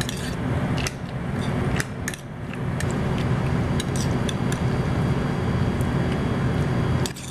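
Metal spoon clinking and scraping against a bowl and a foil pie tin while chunky filling is spooned into a pie crust, with a few sharp clicks in the first couple of seconds and lighter ones after. Underneath runs a steady low rumble.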